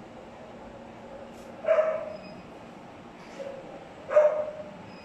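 Young dog barking: two short, sharp barks about two and a half seconds apart, with a fainter one just before the second.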